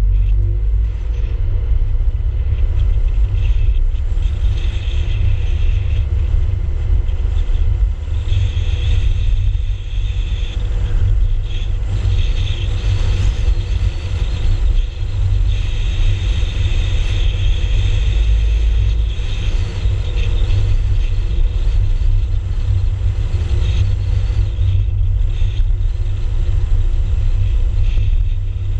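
A car driving, heard as a steady low rumble of wind and road noise on the camera's microphone, with a faint higher whine at times.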